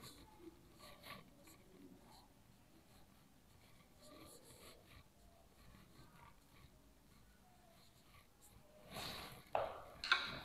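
Marker pen scratching and squeaking on a whiteboard in short strokes as words are written. Near the end comes a louder short breath.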